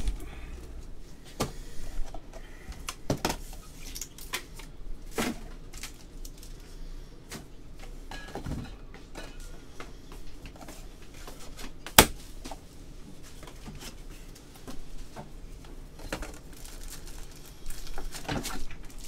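A cardboard shipping case set down with a thump right at the start, then scattered knocks and clicks of things being handled, with one sharp click about twelve seconds in.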